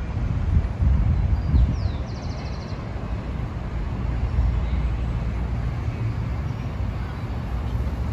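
Outdoor street ambience: a low rumble of road traffic, with a brief high trill about two seconds in.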